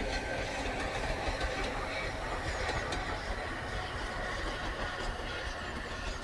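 Peppercorn A2 three-cylinder steam locomotive 'Blue Peter' working a passenger train, heard as a steady, even rumble with no distinct beat.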